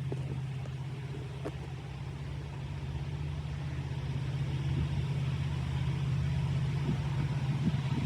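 Diesel locomotive engine rumble, a steady low hum growing slowly louder as the train approaches.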